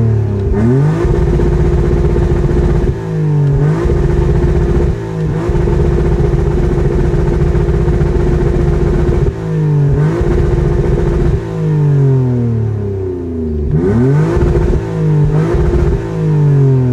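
A 1999 BMW 528i's M52TU 2.8-litre inline-six, breathing through an exhaust with cats and a resonator but no muffler, is revved up and held against a reprogrammed fast hard-cut rev limiter. At the limiter it makes a rapid stutter at a steady pitch, then the revs fall away and climb back, several times; the longest hold lasts about four seconds.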